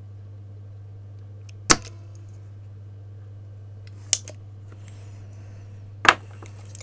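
Spring-loaded desoldering pump (solder sucker) firing with a sharp snap, three times about two seconds apart, sucking molten solder out of through-hole joints on a circuit board so a component can be removed. A steady low hum runs underneath.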